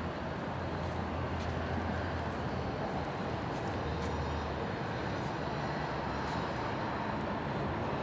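Steady low rumble of outdoor background noise, like distant traffic, with a few faint ticks.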